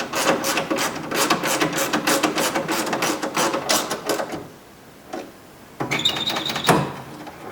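Ratchet clicking rapidly for about four seconds as a T30 Torx screw is driven in, then stopping; a short metallic clink with a brief ringing tone follows about six seconds in.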